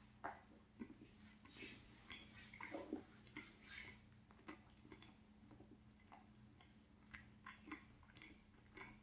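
Faint close-up chewing of a flaky chocolate-filled croissant, with scattered soft crackles and small mouth clicks at an irregular pace.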